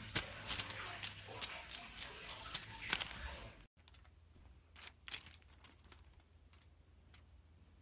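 Persian cat's claws and paws clicking and tapping on a wooden floor in a quick run of light ticks. After a sudden cut about three and a half seconds in it goes much quieter, with a few soft clicks and rustles as the cat plays with a feathered insect toy on bedding.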